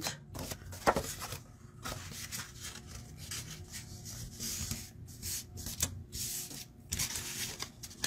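Scored cardstock being folded by hand along its score lines, with irregular paper rubbing and creasing and scattered small clicks. There is a brief sharp sound about a second in.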